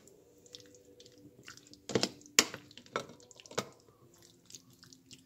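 Metal spoon pressing and stirring canned beans in a plastic colander: wet squishing with several sharp clinks of the spoon against the colander, the loudest about two and a half seconds in, as bean juice drains and drips into the bowl beneath.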